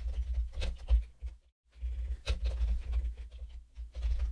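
Computer keyboard typing: a string of irregular key clicks with low thuds under them, pausing briefly about one and a half seconds in.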